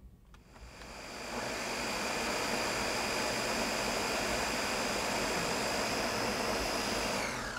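Countertop blender motor switched on, spinning up over about a second, then running steadily with a high whine as it purées cooked cauliflower into mashed cauliflower; near the end it is switched off and the whine falls in pitch as the motor winds down.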